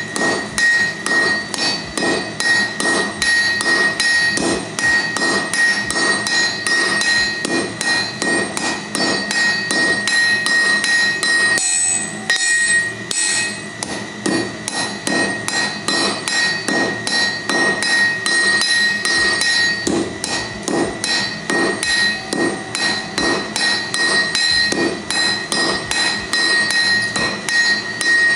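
A blacksmith's hand hammer and a striker's sledgehammer taking turns on a hot steel bar on the anvil to forge it down: a fast, steady run of blows with the anvil ringing under them, and a brief pause about twelve seconds in.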